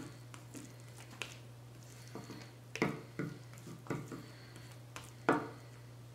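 Metal spoon stirring mashed cauliflower in a bowl: about five short clinks and scrapes of the spoon against the bowl, spread over a few seconds, over a steady low hum.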